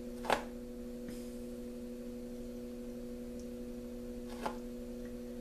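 Steady electrical mains hum, a low buzz of a few even tones, with a short click about a third of a second in and another around four and a half seconds.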